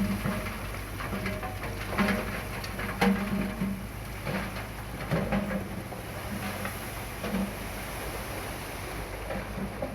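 Komatsu bulldozer running steadily under load, with irregular clatter, crunching and knocks of rock being pushed and spread; the sharpest knocks come about two and three seconds in.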